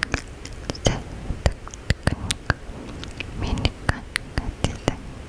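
Close-miked wet mouth clicks and smacks, many sharp ones in quick irregular succession, with soft unintelligible whispering between them.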